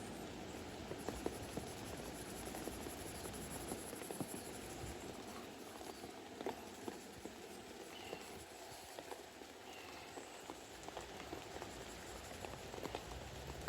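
Steady rain falling, with scattered drips tapping close by.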